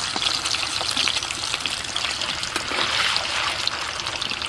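Paneer cubes frying in hot oil, a steady sizzle with many small crackles and pops.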